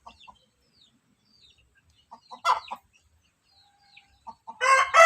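Chickens giving a few short, soft clucks, then a rooster starting a loud crow near the end.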